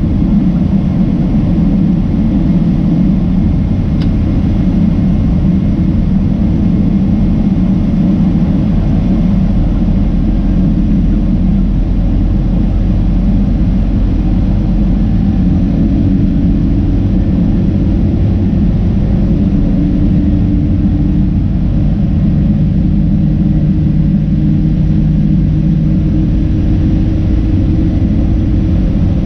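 Steady cabin noise of a Boeing 767-300ER climbing after takeoff: a loud, low rumble of the jet engines and rushing air, with faint engine tones that shift slightly in pitch.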